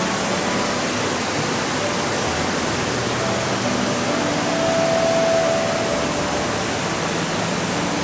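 Steady rush of falling water from a waterfall and its rocky cascade: an even, unbroken hiss.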